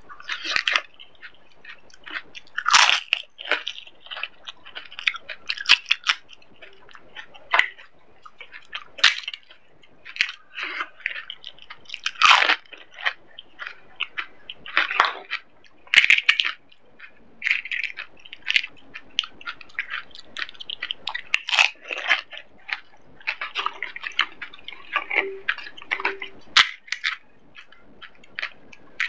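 Crisp, hollow fried panipuri (golgappa) shells cracking and crunching as they are poked open and bitten, with chewing in between, close-miked. The crunches come irregularly, a loud one every second or few.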